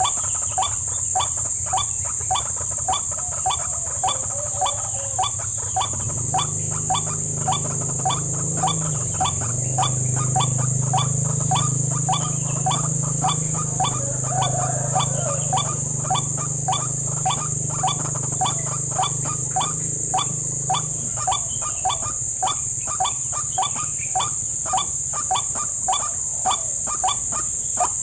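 White-breasted waterhen calls: a rapid, evenly repeated note about twice a second, used as a lure call, over a steady high drone of insects. A low hum comes in about six seconds in and stops about twenty-one seconds in.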